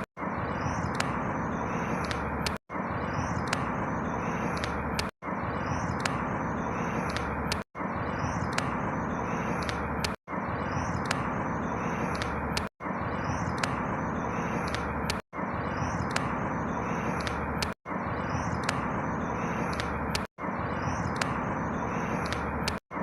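A short outdoor ambience loop: a steady rushing background noise with faint bird chirps above it, repeating about every two and a half seconds with a brief dropout between repeats.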